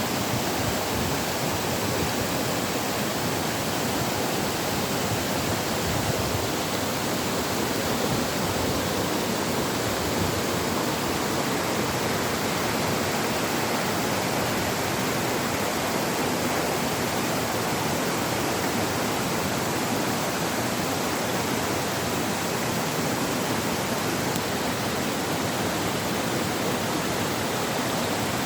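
Steady rush of flowing water, an even hiss without breaks or changes.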